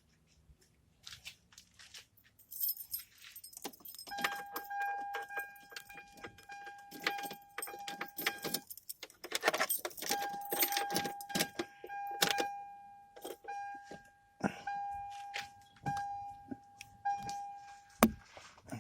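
Keys jangling and clicking at the truck's ignition. From about four seconds in, the cab's steady electronic warning chime sounds in long stretches with short breaks.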